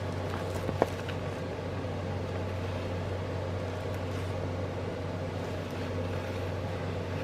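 Steady low background hum with a sharp click about a second in and faint light ticks and rustles, as a beaded cross stitch kit is handled.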